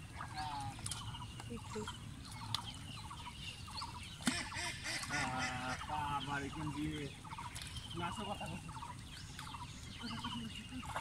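Birds calling over and over in short repeated calls, with a person's voice briefly about halfway through.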